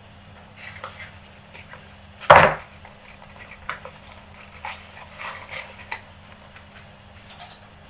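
A block of butter drops into a plastic stand-mixer bowl with a single loud thud about two seconds in, followed by short crinkling rustles of the paper butter wrapper as the rest of the butter is scraped off into the bowl.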